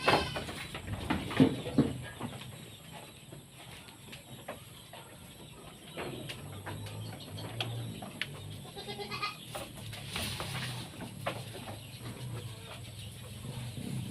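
Goats bleating several times, the loudest calls in the first two seconds and scattered calls after.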